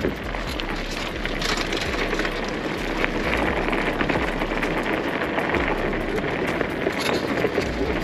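Fat-tyre bicycle (WaltX Dune 1) rolling fast downhill over a loose gravel and dirt track: steady crunching and crackling of the wide tyres on small stones, with rattling from the rigid bike and wind rumbling on the microphone.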